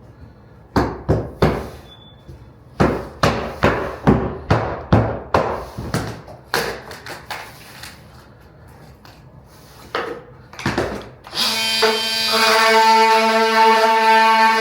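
Hammer blows on wood, a quick series of sharp knocks about two a second, then a few more after a pause, as trim is cut and notched out for flooring to slip under. About eleven seconds in, music with long held tones comes in.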